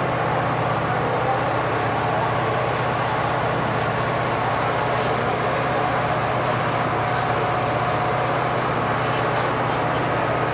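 Steady drone of a small harbour boat's engine under way, with the rush of water from its churning wake.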